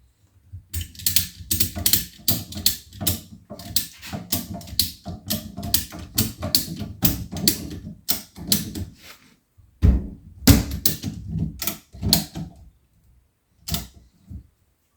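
Ratchet strap being cranked tight, its pawl clicking in quick runs of strokes as it pulls a strut's compressed coil spring down. A second run of clicks follows after a short pause, then one last click near the end.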